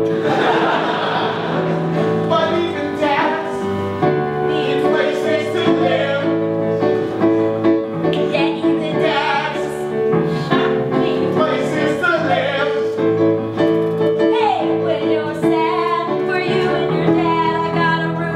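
Live piano playing sustained chords with a performer singing a song over it.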